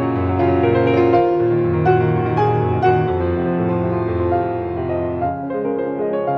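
Instrumental background music led by piano, notes held and changing at an unhurried pace.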